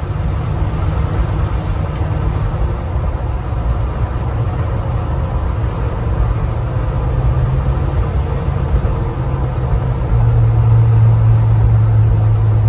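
A Chevrolet 350 cubic-inch V8 with dual exhaust runs under way, heard from inside the closed cab of a 1969 C10 pickup as a steady low hum. It grows louder through the stretch and steps up sharply about ten seconds in.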